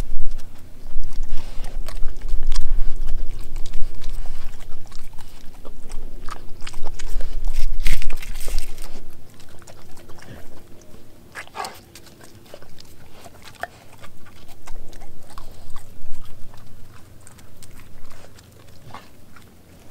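A dog eating leftover scraps off a plastic cutting board at close range: chewing with many short mouth clicks, loudest and busiest over the first half with a deep rumble underneath, then sparser and quieter.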